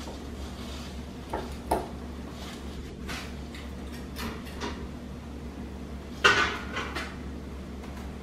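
A metal wire jar lifter and glass canning jars clinking and clanking against a steel stockpot as jars are lifted out of the boiling-water bath. There is a scattered series of short knocks, and the loudest, ringing clank comes about six seconds in. A steady low hum runs underneath.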